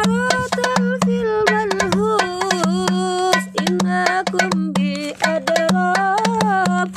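Darbuka (goblet drum) played by hand in quick, dense strokes, under a held, sliding sung melody with vibrato and a steady low pulse: sholawat singing with drum accompaniment.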